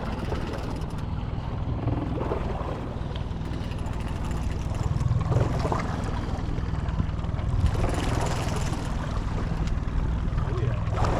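Boat motor running steadily at trolling speed, a low even drone, with wind and water noise over it.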